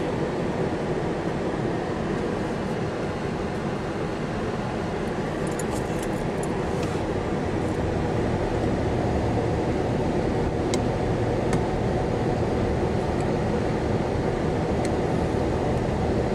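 Steady rumbling noise of a vehicle on the move, with a few faint clicks.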